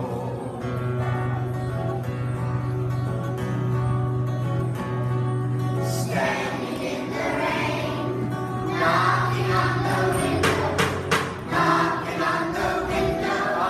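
Children's choir singing a Christmas song with acoustic guitar accompaniment over a steady bass line, the voices growing louder about six seconds in. A few sharp percussive hits come in the second half.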